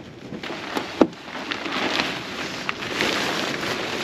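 Rustling of a fabric motorcycle cover being handled and unfolded, with one sharp click about a second in.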